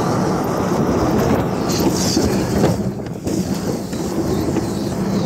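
Steady driving noise of a truck towing a riding mower across wet, gravelly pavement: engine and tyres rolling, with wind on the microphone. The noise dips briefly about three seconds in.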